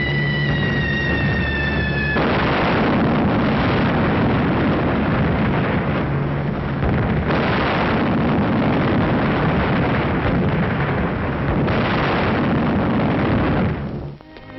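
Air-raid sound effects on an old film soundtrack: a high whine falling slowly in pitch breaks off about two seconds in into continuous loud explosions and rumbling. Fresh blasts come about seven and twelve seconds in, and the noise dies away just before the end.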